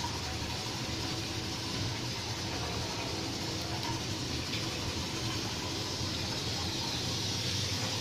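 Steady hiss of a gas stove burner, with a honey-and-ginger mixture heating in a small steel pan held over the flame.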